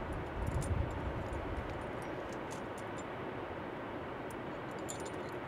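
Steady outdoor wind noise, with a gust buffeting the microphone as a low rumble about half a second in and a few faint clicks.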